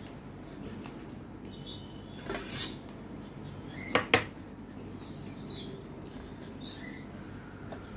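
Two sharp clinks close together as a small brass bowl is set down among the metal dishes about four seconds in. Around them are soft eating noises of rice and curry being mixed by hand on a metal plate and chewed.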